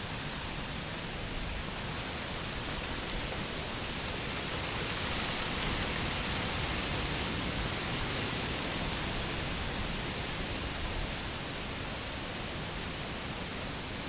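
Steady rushing outdoor noise with no distinct events, swelling a little for a few seconds in the middle.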